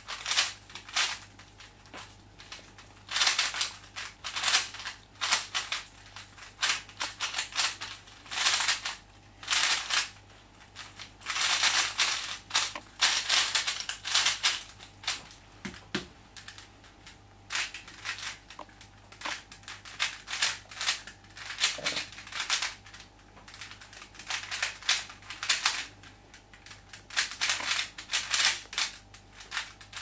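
Plastic speed cube's layers being turned fast by hand, a rapid clacking that comes in bursts of a second or two with short pauses between. About halfway through comes a soft knock as a cube is set down on the mat.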